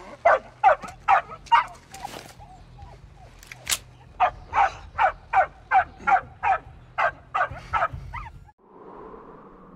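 A dog barking over and over, short sharp barks about two to three a second, with a brief lull and then a steady run of barks that stops near the end.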